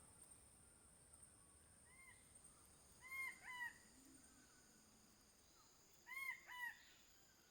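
King bird-of-paradise calling: two pairs of short, arched, nasal notes, one pair about three seconds in and another about three seconds later. A faint steady high-pitched insect drone runs underneath.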